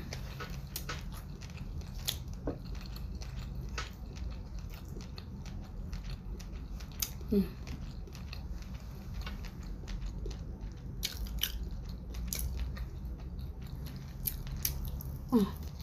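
Close-up chewing and biting of sushi topped with fish roe: wet mouth sounds with many small, irregular crunches and clicks.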